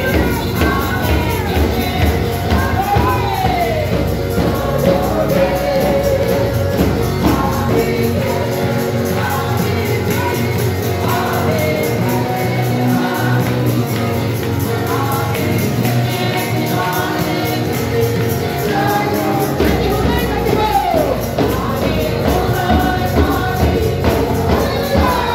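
Live church praise-and-worship music: a woman sings lead through a microphone and PA with the congregation singing along, over the beat of a large double-headed drum. The deepest bass drops away for about ten seconds in the middle, then returns.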